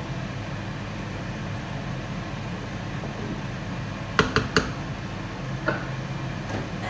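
Cookware clinking: three quick sharp knocks a little over four seconds in and a fainter one near six seconds, over a steady low hum and hiss from the stovetop.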